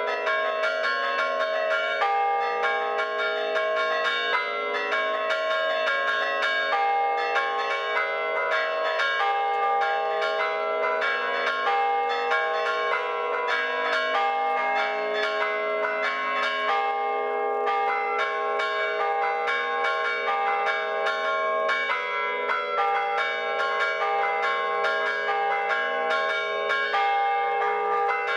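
Several church bells chimed by hand from the ringing room below, the ringer working their ropes with both hands and both feet. The bells sound in a continuous run of strikes at several different pitches, without a pause.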